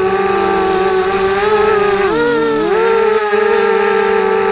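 Brushless motors and propellers of a ZMR-250 FPV quadcopter, heard close from its onboard camera: a steady whine of several tones. About two seconds in, the pitch briefly swoops down and back up as the motor speeds change.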